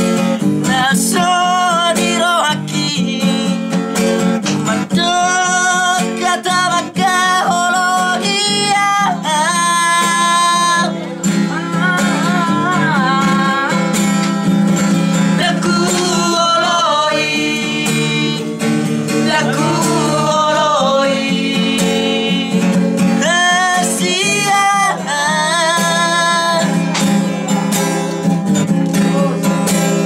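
A man singing while strumming an acoustic guitar, with long held, wavering notes over a steady strummed accompaniment.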